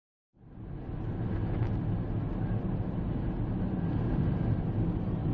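Car driving along a road, heard from inside the cabin: a steady low rumble of engine and tyre noise that fades in about a third of a second in.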